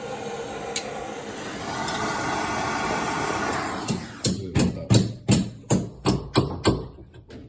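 A steady hiss, then a quick run of about nine sharp knocks, roughly three a second, that stops near the end.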